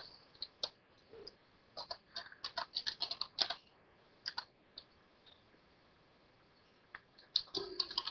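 Typing on a computer keyboard: light keystrokes come in quick irregular runs, then stop for about two seconds, then start again near the end.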